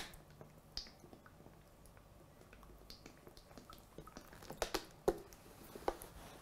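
Cooking oil poured in a thin stream from a plastic bottle into a glass bowl of sugar, faint, with small wet clicks and drips. A few sharper light taps come about two-thirds of the way through.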